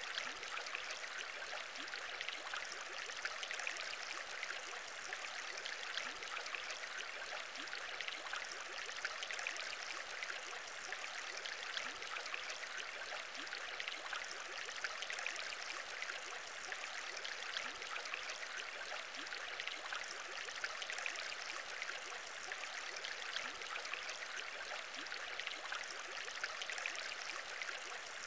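Aquarium bubbling: a steady stream of small bubbles rising and popping in water, thick with tiny pops and without pauses.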